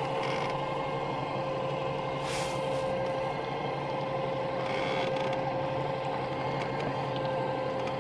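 A solar kayak's electric drive motor running steadily under load with a constant whine. It is making strange noises, which the owner fears mean it is taking on water.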